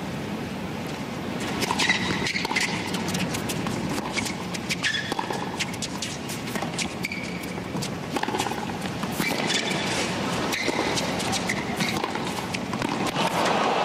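Tennis rally on a hard court: racket strikes on the ball every second or two, with short squeaks of shoes on the court and a low crowd murmur. Crowd noise rises near the end as the point finishes.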